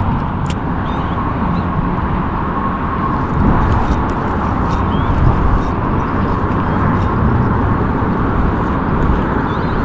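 Steady outdoor rumble and hiss of wind on the microphone and flowing river water, with a few faint short bird chirps.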